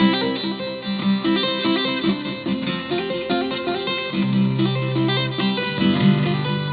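Strinberg acoustic guitar (violão) played solo to imitate a harp: single plucked notes in a flowing melody over ringing bass notes.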